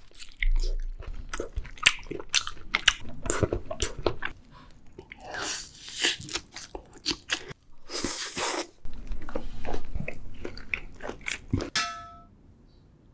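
Close-miked mouth sounds of people eating raw salmon and rice: wet chewing and smacking made of many short, irregular clicks. The sounds stop near the end.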